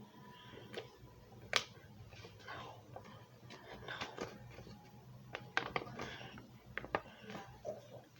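A sheet of paper being folded and creased by hand: faint rustling with scattered sharp crinkles and taps, one louder snap about one and a half seconds in and a run of them near the end.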